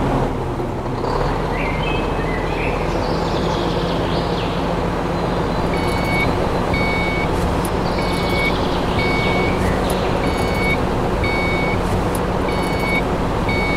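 A small motor running steadily with a low hum. From about six seconds in, a high beep repeats evenly, a little faster than once a second, like a reversing alarm.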